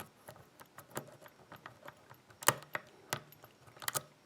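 Lock pick and tension tool working the pins of a pin-tumbler mortise cylinder with security pins. Irregular small metallic clicks and scrapes, with a few sharper clicks around the middle and near the end.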